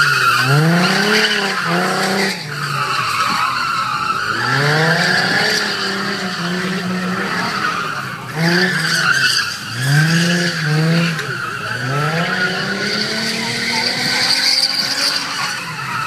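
A drift car's engine revs up and falls back over and over as it slides through turns, with long, sustained tyre squeal from the rear tyres breaking loose.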